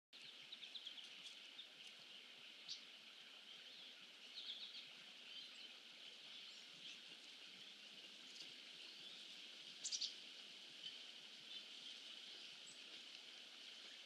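Faint, scattered short chirps of small birds calling, a few quick notes at a time, with the loudest cluster about ten seconds in, over a steady faint hiss.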